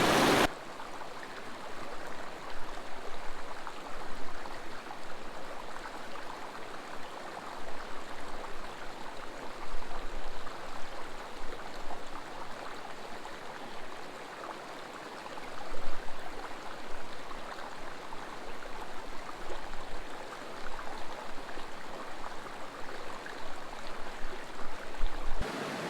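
A mountain creek running over rocks: a steady rush and burble of water that swells briefly louder a few times.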